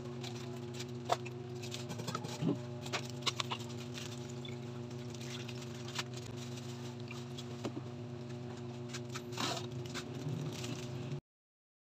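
Coconut milk pattering and dripping from a plastic strainer of squeezed grated coconut into a bowl. Light clicks of plastic strainer and bowls being handled run through it, over a steady low hum. The sound cuts off abruptly near the end.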